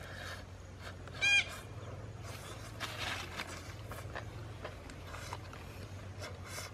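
A man eating roasted rabbit by hand, with scattered chewing, tearing and rustling noises and small clicks, over a steady low hum. A single short honking animal call sounds about a second in and is the loudest thing.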